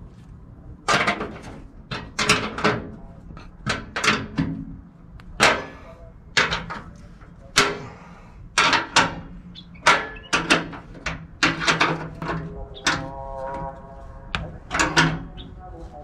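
Sharp metallic clicks and clinks, about one or two a second at an uneven pace, from a wrench and hex key working on the blower wheel hub on its new shaft while the hub is being tightened.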